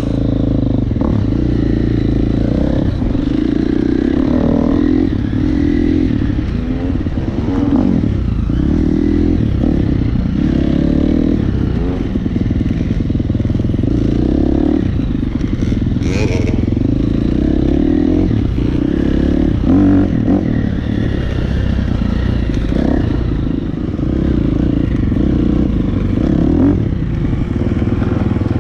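Dirt bike engine running under way, recorded on the moving bike, its revs rising and falling as the throttle is worked. A few brief knocks are heard, the sharpest about halfway through.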